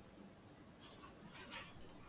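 Near silence: faint room tone with a couple of soft, faint sounds about a second in.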